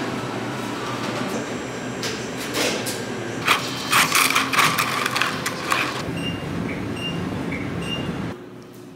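Steady café background noise, with a straw's paper wrapper being torn off and the straw pushed into a plastic drink cup, crackling and rustling for a couple of seconds. A few short high beeps follow, and the background drops much quieter shortly before the end.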